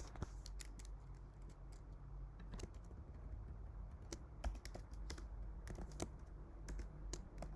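Computer keyboard typing: irregular key clicks in quick runs, over a low steady hum.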